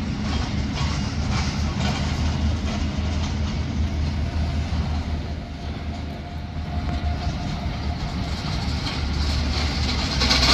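Steady airport background noise: a low rumble with hiss, a faint steady whine in the middle few seconds, and the hiss growing louder near the end.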